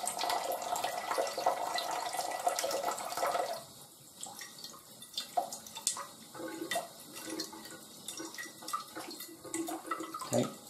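Kitchen tap running into a stainless steel sink while shaggy ink cap mushrooms are rinsed by hand under the stream. The splashing is steady, then drops quieter about three and a half seconds in, leaving light patters and drips.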